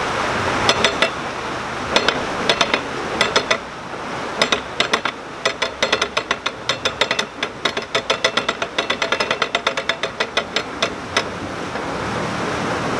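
Canal lock paddle gear being wound with a windlass: the ratchet pawl clicks over the metal teeth, a few scattered clicks at first, then a fast run of several clicks a second that stops about eleven seconds in.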